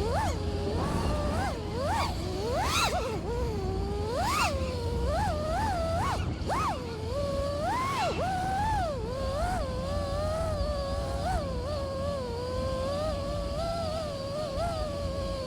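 Brushless motors and propellers of a 5-inch FPV freestyle quadcopter whining, the pitch shooting up and dropping back again and again with quick throttle punches, then holding a steadier tone in the second half before rising near the end. A steady low rumble runs underneath.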